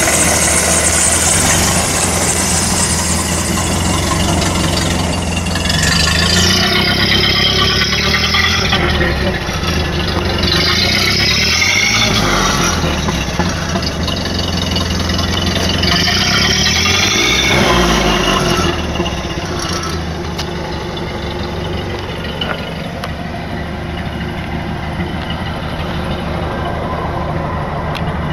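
1930 Ford Model A's counterbalanced four-cylinder flathead engine running, revved up and back down three times in the first two-thirds, then settling to a steady run.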